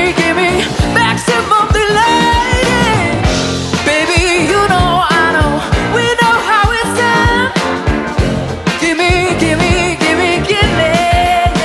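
A live rock band playing with a sung lead vocal over drums, electric guitar and vintage keyboards (organ, clavinet, Wurlitzer electric piano), the voice sliding and wavering on held notes.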